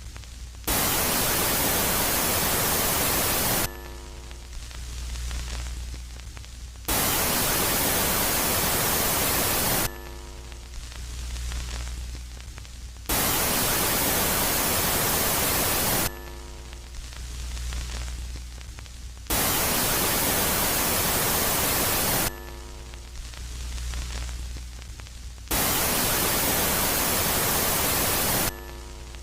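Electronic space-ambience sound presented as the sound of Jupiter's moon Megaclite, switching about every three seconds between a loud phase of even static hiss and a quiet phase of low hum with faint, swelling tones. Five loud static phases occur, each starting and stopping abruptly.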